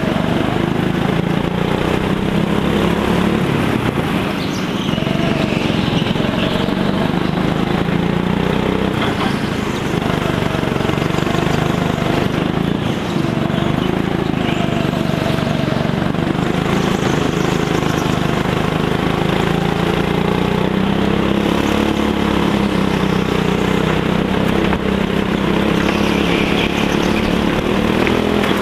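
Go-kart engine running, heard from on board the kart, its pitch rising and falling over and over as the kart speeds up and slows through the corners.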